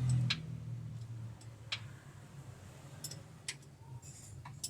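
Several irregular sharp clicks and light metallic taps, as of tools and steel parts being handled, over a low steady hum.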